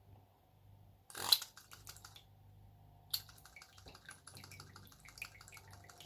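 Battery-powered NUK electric breast pump running with a low steady motor hum, pumping water through. A loud click comes about a second in, and from about three seconds in there is rapid, irregular clicking and dripping as the water goes through the pump. The motor is very slow.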